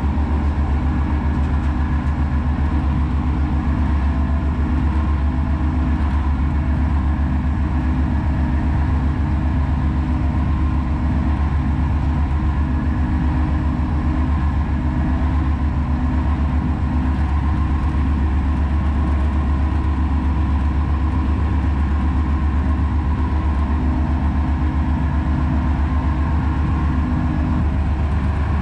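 County tractor's diesel engine running steadily, heard from inside the cab, with a strong low hum. Part of the higher hum drops away near the end.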